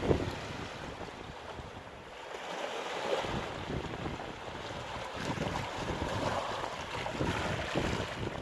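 Sea surf washing and breaking on the shore at high tide, swelling louder about three seconds in, with wind buffeting the microphone.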